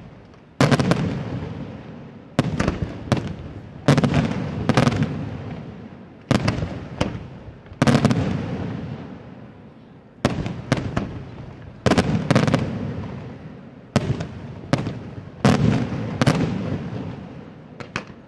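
Aerial firework shells bursting one after another, a loud bang every second or two, each trailing off in a long echo.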